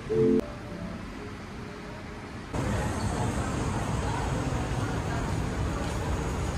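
A short loud musical note right at the start over quiet indoor room tone, then about two and a half seconds in an abrupt cut to steady city street noise: passing traffic and general outdoor bustle.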